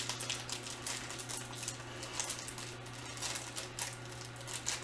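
Plastic candy packaging crinkling and crackling as it is handled and opened: a run of small, irregular crackles over a faint steady low hum.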